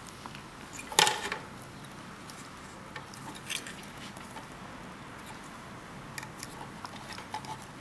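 Sparse small clicks and light metallic clinks from handling a capillary thermal cutout, its spade wire terminals and a pair of pliers. The loudest click comes about a second in.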